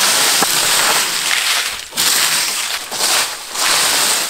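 Push broom sweeping dry leaves across a wooden plank floor: a scratchy rustle in strokes, a dip about every second and a half.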